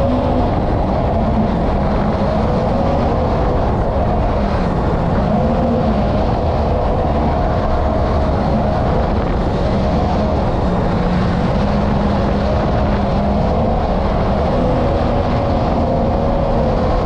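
Mini jet boat's Yamaha MR-1 1.1-litre four-stroke three-cylinder engine, out of a WaveRunner VX110, running steadily at high throttle, its pitch wavering slightly, over rushing water and wind.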